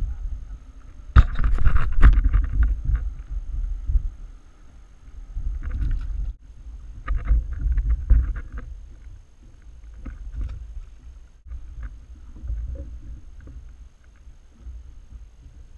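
Wind buffeting the microphone of an action camera on a kayak, in gusts, with scattered knocks and clatter. The clatter is loudest about a second in and again around six to eight seconds.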